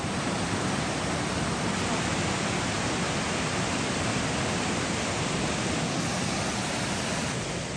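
A rain-swollen forest brook rushing down a rocky cascade, a steady, even rush of white water.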